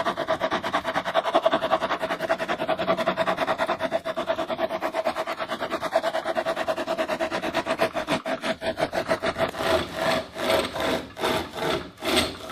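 Pocket chainsaw, a flexible saw chain pulled back and forth by hand, cutting through wood with a fast, even rasp. In the last couple of seconds the strokes become slower and longer.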